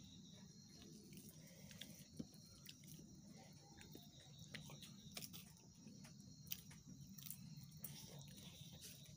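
Faint, steady chirring of crickets, with scattered small clicks.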